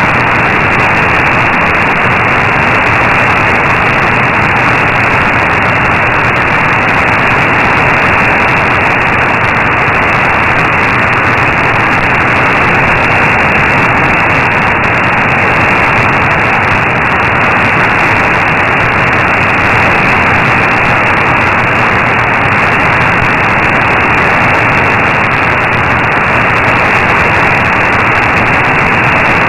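Steady shortwave static: even hiss and crackle from an AM receiver tuned to 15476 kHz, cut off sharply at the top by the narrow AM filter. No programme is readable through it; the station's signal is too weak, near S3.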